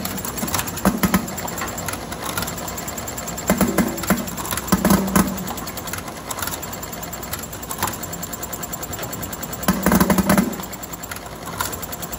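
VMek Abacus+ counting and bottle-filling machine running, with a steady stream of small clicks and louder clattering bursts every few seconds at irregular intervals.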